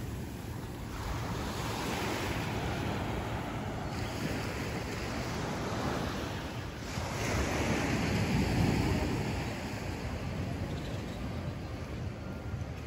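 Ocean surf washing onto a sandy beach, a steady wash that swells louder about two-thirds of the way through and then eases, with some wind on the microphone.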